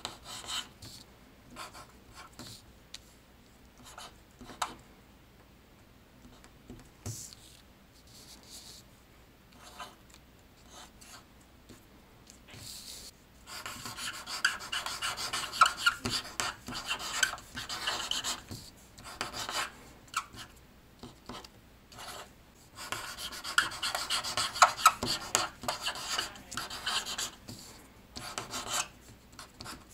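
Rasping, scraping rubbing sounds: scattered short scrapes and taps at first, then two long dense stretches of scraping, one starting about halfway through and one near the end.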